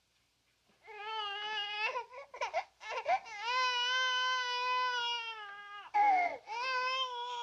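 A baby crying: a series of high-pitched wails, the longest held about two seconds in the middle, broken by short catching sobs.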